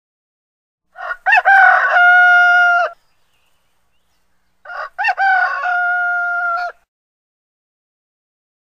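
Rooster crowing twice, each crow a short rising start followed by a long held note of about two seconds.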